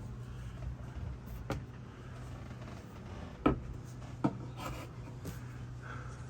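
Light rubbing and handling sounds on a wooden cabinet, with a few sharp knocks, the loudest about three and a half seconds in, over a steady low hum.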